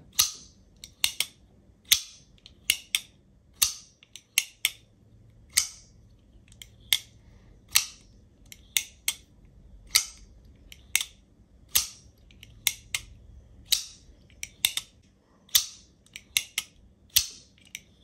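Grimsmo Norseman titanium flipper knife being flipped open and closed over and over. Its blade fires out and locks with a sharp metallic snap, and lighter clicks come as it is closed, one to two a second.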